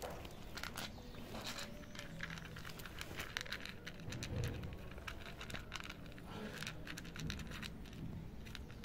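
Calico cat crunching dry kibble, a quick, irregular run of small crunches and clicks as it chews.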